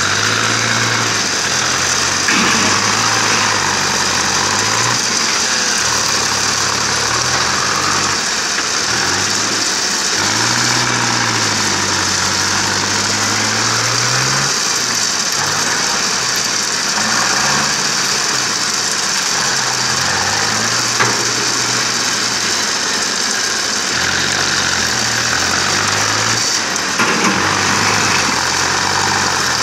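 Mahindra tractor's diesel engine running as it works its front loader, its speed rising and falling again and again. A steady high hiss lies under it.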